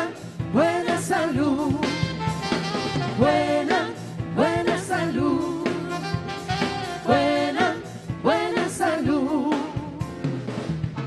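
Opening theme song: several voices singing over a band, in short phrases that repeat.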